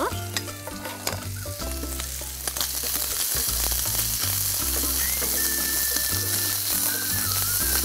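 Chicken, onion, red bell pepper and green chillies sizzling as they stir-fry in a pan, with a spatula scraping and clicking against it. The sizzle grows louder and steadier about two and a half seconds in.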